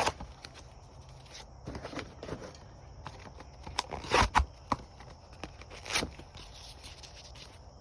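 Irregular scuffs and light knocks from someone moving about and handling things, with a few short, louder noisy bursts about four seconds and six seconds in.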